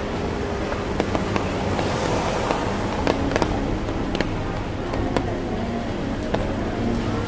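Busy city street ambience in the rain: a steady wash of street noise with many scattered sharp clicks and taps.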